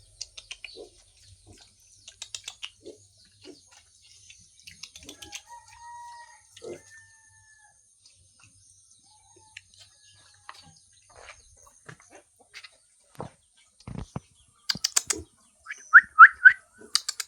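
Chickens clucking and calling, with scattered clicks and knocks throughout and a louder run of three short calls near the end.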